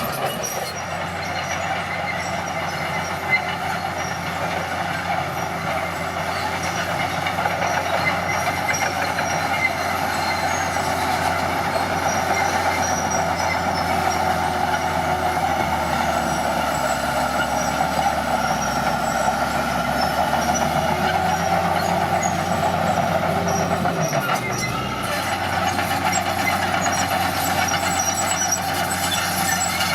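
Heavy earthmoving machine's diesel engine running steadily, with a constant mechanical noise over its low hum; the hum shifts briefly about 24 seconds in.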